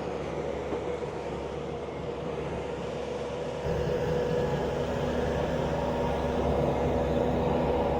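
Heavy-equipment engine running steadily while lifting, getting louder a little before halfway through as it takes more throttle or load.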